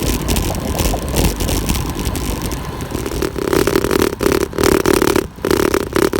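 Wind rushing and buffeting over the handlebar-mounted camera's microphone, with road rumble, as a road bike descends at speed. A steadier hum joins about three seconds in.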